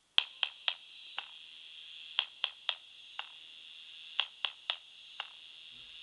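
Quiet electronic instrumental break in a song: a thin, high, telephone-like hum held steady under short falling blips that come in a repeating pattern of three quick blips and one more, every two seconds.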